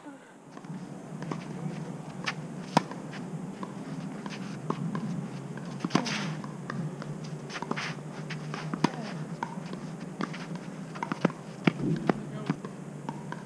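Tennis rally on a clay court: the sharp pops of racket strings striking the ball, starting with a serve and then shots traded every second or two, with running footsteps on the clay.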